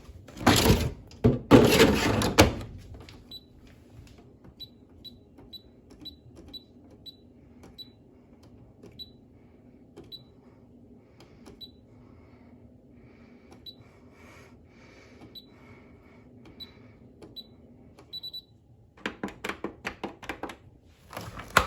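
Beko tumble dryer's control panel giving about fifteen short high beeps at irregular spacing, each with a faint click, over a low steady hum. Loud knocks and clatter come at the start and again near the end.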